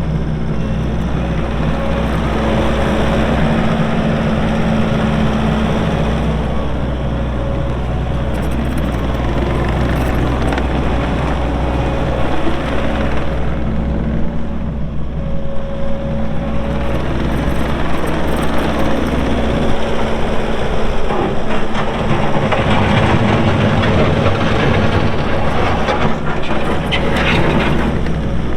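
Kubota SVL65-2 compact track loader's diesel engine running steadily, with a hydraulic whine, while the machine is worked. It gets rougher and more clattery in the last several seconds.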